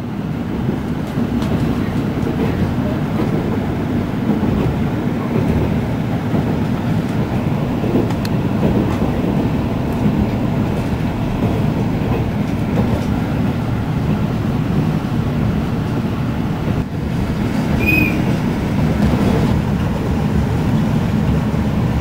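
485-series electric limited express train running at speed, heard inside the passenger car as a steady low rumble of wheels on rails. A short faint high squeak comes near the end.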